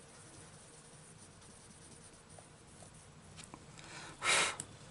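Faint scratching of a Prismacolor coloured pencil shading on a book page. Near the end come a few light clicks and one short, loud rush of noise as the pencils are handled.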